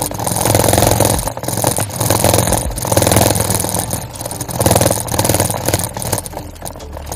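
Bicycle rolling fast over a path of concrete grass-grid pavers: a continuous rough drumming of the tyres with the bike rattling over the rapid bumps, easing briefly a few times.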